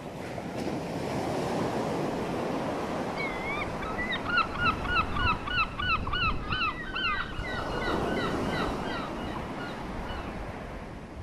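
Steady surf washing onto a sandy beach, with wind on the microphone. About three seconds in, birds break into a fast series of short, rising calls, several a second and overlapping, which stop about six seconds later.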